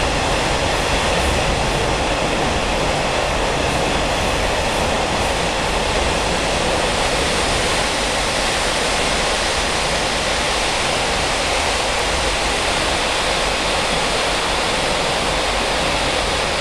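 Steady, loud running noise of a Taiwan Railway SPK32700-series ordinary passenger coach at speed: an even rush of wheels on rail heard from inside the car, with no breaks or single knocks.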